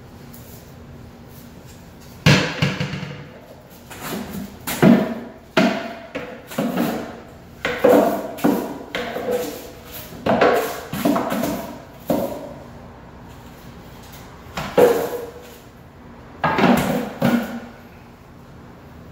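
Broom knocking and scraping against the shelves of empty kitchen cabinets as they are swept out: a run of irregular knocks, each trailing into a short brushing scrape, starting about two seconds in, with a brief pause about two-thirds of the way through.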